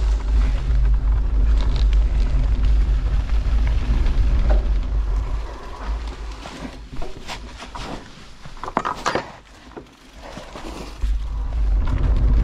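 Mountain bike riding down a leaf-covered dirt track, with tyre rumble and wind buffeting the camera microphone. Midway the rumble drops off and a few sharp knocks and clicks sound; the rumble picks up again near the end.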